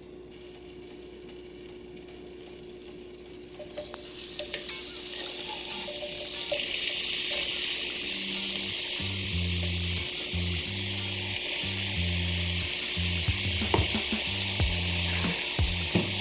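Sliced onions frying in hot oil in a stainless steel skillet. The sizzle starts about four seconds in as the onions go into the pan, swells to a steady loud hiss by about halfway, and carries a few light clicks near the end.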